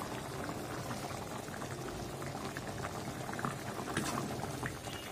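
Thick beef liver and potato curry bubbling in a karahi on a gas burner: a steady run of small irregular pops and gurgles.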